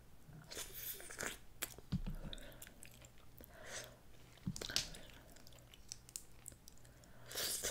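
Snow crab leg shells being cracked and picked apart by hand and the meat eaten: a scatter of faint, irregular cracks and crunches.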